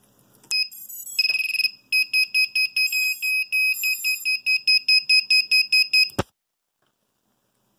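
Racing quad's buzzer beeping loudly as the battery is plugged in and the flight controller powers up: a short beep, a longer beep, then a rapid run of about five beeps a second. It cuts off suddenly with a click about six seconds in.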